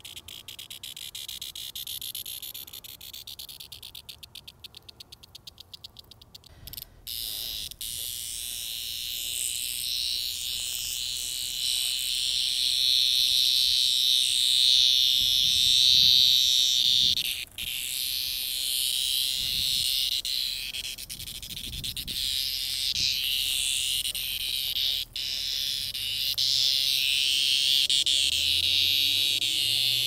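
Cicadas buzzing: rapid high ticking pulses for the first several seconds, then a loud steady high-pitched buzz that breaks off briefly twice.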